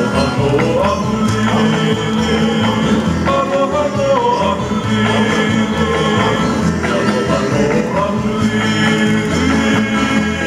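Hula music: a singing voice carrying a wavering melody over a steady, pulsing bass beat.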